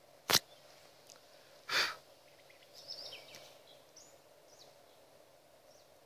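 Quiet outdoor ambience: a sharp click early on, then a short breathy rush of noise about a second and a half later, followed by a few faint, high bird chirps that glide downward.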